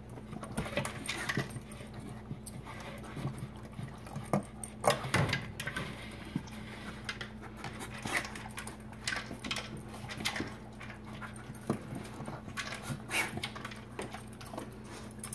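Two dogs eating from plastic slow-feeder maze bowls: irregular clicks, knocks and rattles as the food is nosed and licked around the ridges of the bowls.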